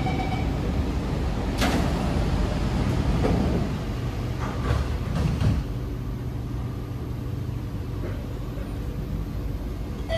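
Cabin noise inside an SMRT C751B metro train: a steady low rumble and hum, with a sharp knock about a second and a half in and a few more clunks around the middle.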